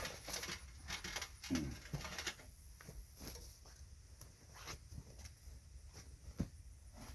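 Scattered faint knocks, scrapes and rustles of pieces being handled, with no steady machine running.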